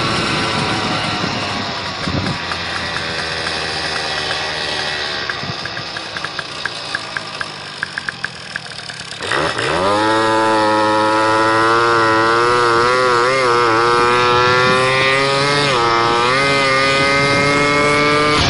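Motobecane moped's two-stroke single-cylinder engine running on the road, with wind noise. For the first half its pitch slowly falls and it breaks into a rapid ticking stutter; about halfway through the throttle opens and the engine rises sharply to a loud, high buzz that keeps creeping upward.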